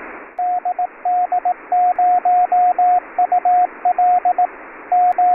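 Morse code at a steady pitch, keyed in dots and dashes that spell the call sign DD0UL and then QTC, over a steady band-limited hiss like a shortwave receiver's audio.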